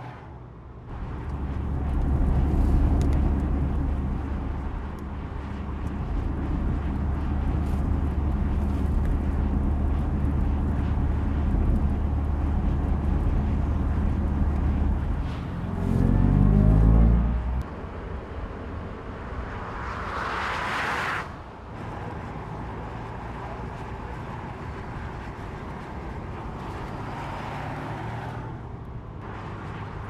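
Mercedes-AMG EQE 53 electric sedan driving: a steady low hum with tyre and road noise, a rising tone about halfway through, and a brief rush of noise about two-thirds of the way in.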